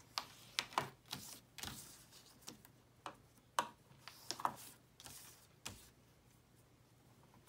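Paper being scored with a bone folder along the grooves of a scoring board: a string of short, irregular ticks and scratchy strokes that stops about six seconds in.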